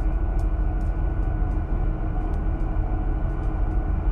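Steady low rumble of a stern trawler's engines and deck machinery, with faint scattered ticks.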